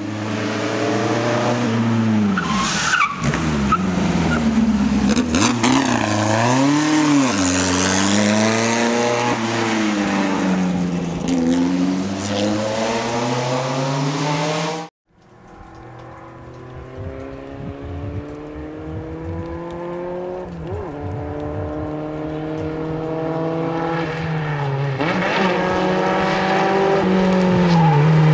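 Cooper Climax T45's Coventry Climax FPF 2.0-litre inline-four racing engine, loud and close, its revs swinging up and down through gear changes. After an abrupt break about halfway through, it is heard again approaching, its pitch climbing in steps as it shifts up and growing louder until it is close by near the end.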